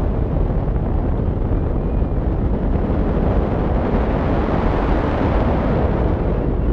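Steady rushing and low rumbling of airflow over a wing-mounted camera's microphone on a hang glider in flight.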